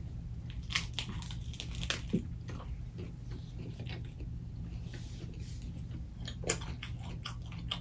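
Close-miked eating sounds of a lettuce-wrapped chicken sandwich being bitten and chewed: crisp lettuce crunches and wet mouth smacks, with one louder smack about six and a half seconds in, over a steady low hum.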